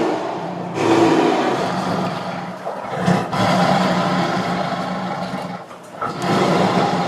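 Tiger roaring and growling in a series of long, rough, low calls, with new roars starting about a second in, about three seconds in and about six seconds in.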